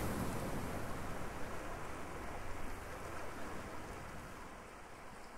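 Sea surf washing around shoreline rocks: a steady wash of water that slowly fades out.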